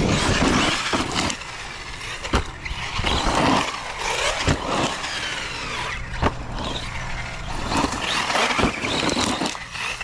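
Traxxas Sledge RC truck's 1650 kV brushless motor whining in repeated bursts of throttle, its pitch rising and falling as the truck speeds up and slows on the dirt, with about three sharp knocks along the way.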